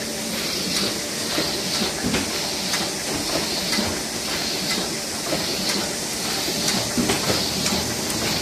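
Single-colour Roland sheet-fed offset press running and passing card sheets through: a steady machine noise with hiss and light, regular clicking.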